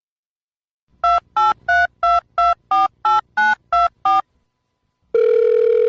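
Telephone keypad tones dialling a number: ten short two-tone beeps, about three a second. Near the end, a steady telephone line tone starts.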